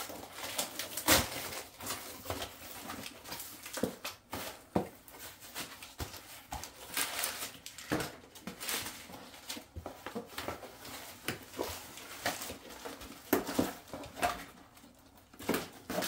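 Brown kraft packing paper crinkling and rustling as it is pulled out of a cardboard shipping box, with scrapes and knocks from the box flaps, coming in irregular spurts.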